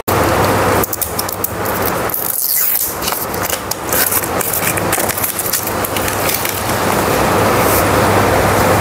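Sparkling makgeolli bottle being opened, carbonation gas hissing out as the cap is loosened, a steady loud hiss with a couple of brief dips near the start.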